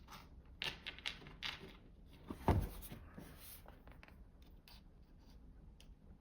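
Hands handling devices and cables on a desk: a few soft clicks and rustles, then one louder knock about two and a half seconds in, and faint handling after that.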